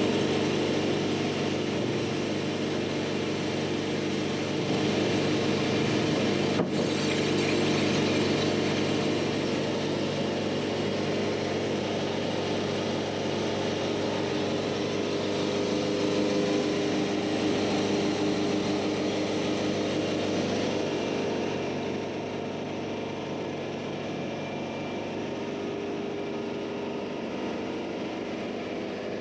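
Diesel engine of a Wood-Mizer LT-70 band sawmill running steadily, with a broad hiss over it that eases off about two-thirds of the way through.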